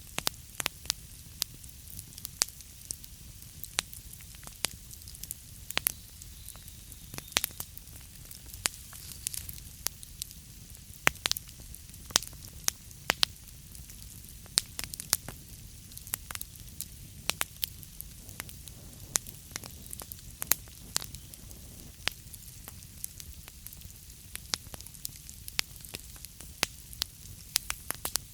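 Wood fire burning in a fireplace: a steady low hiss with frequent sharp, irregular crackles and pops.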